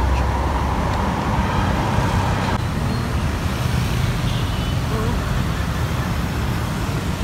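Steady road traffic noise: cars and motorcycles running past on a busy multi-lane road, with a low engine rumble.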